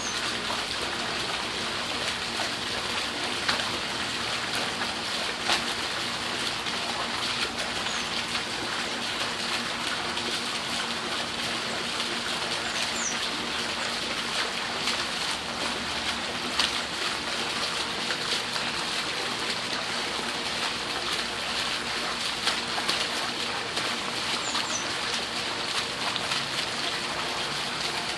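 Steady trickling, splashing water with many small drip-like ticks, with a few faint short high chirps now and then.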